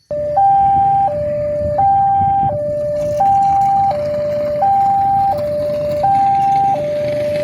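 Railway level-crossing barrier warning siren starting abruptly and sounding a two-tone alarm, alternating evenly between a higher and a lower tone, each held for about two-thirds of a second. It is the signal that a train is approaching and the barrier is closing.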